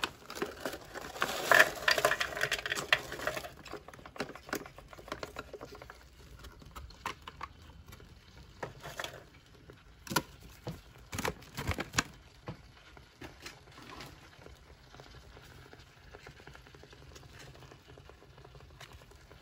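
Foil-lined MRE food pouch being handled, crinkling and rustling densely for the first few seconds. Then scattered crackles and light taps follow, with a few sharper ones about ten to twelve seconds in.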